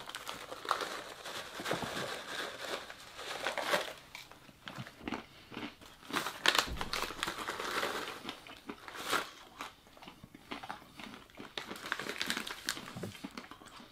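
Snack bag of peanuts crinkling and rustling as it is opened and handled, in irregular crackly bursts.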